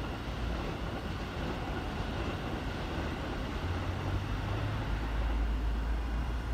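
Steady hum and hiss of a stopped Keikyu 800 series electric train, with a deeper low rumble swelling about four seconds in.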